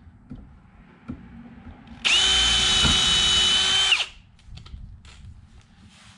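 Cordless drill boring into a pine 2x4: about two seconds in the motor spins up quickly to a steady high whine, runs for about two seconds under load, then winds down and stops. A few light knocks come before and after it.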